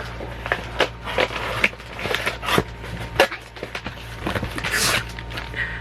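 Packaging and small items being handled while the next item is taken out of the box: an irregular run of clicks and taps, with rustling and crinkling about two seconds in and again near five seconds.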